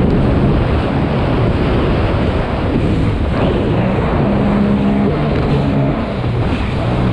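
Sea-Doo Spark personal watercraft running hard over water: a steady engine note under a constant rush of water and wind, the engine pitch standing out a little more around the middle.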